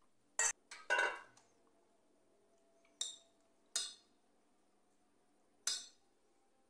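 Steel spoon clinking and scraping against a stainless steel pressure cooker as boiled chicken pieces are lifted out. There are five separate short metallic clinks, each with a brief ring.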